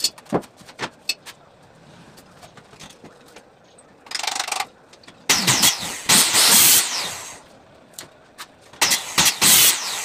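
Handheld electric cutter (small circular saw) run in three short bursts into a plywood board, its motor speeding up and slowing down each time, the middle burst the longest. A few sharp taps and knocks in the first second.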